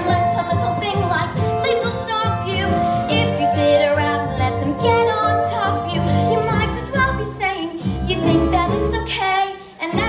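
Upbeat musical-theatre backing music with a steady beat, dipping briefly just before the end.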